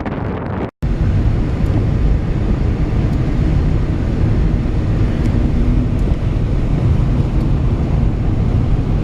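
Steady low rumble of wind buffeting the microphone mixed with vehicle noise, broken by a brief silent cut just under a second in.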